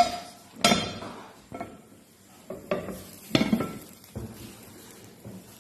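A white ceramic plate knocking and clinking against a frying pan on a gas hob as it is set on top of the pan, about seven irregular knocks with a short ring after each.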